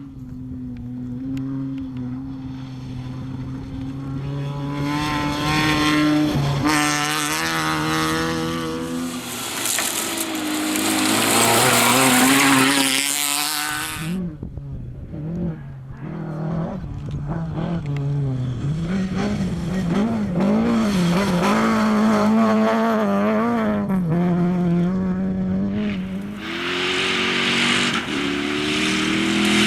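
Rally car engine being driven hard, its pitch climbing and falling with acceleration and gear changes. Two stretches of loud hissing noise sit over it, the first ending abruptly about fourteen seconds in and the second near the end.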